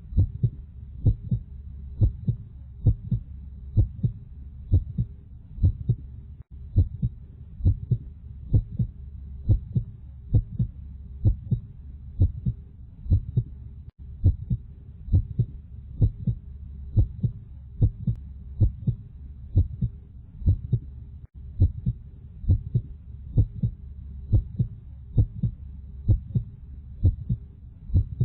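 Heartbeat sound: a steady lub-dub of paired low thumps about once a second, over a continuous low hum.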